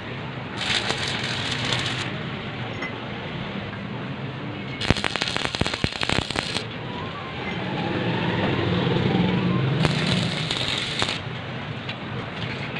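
Stick (arc) welding on steel: three bursts of crackling from the arc, each one to two seconds long.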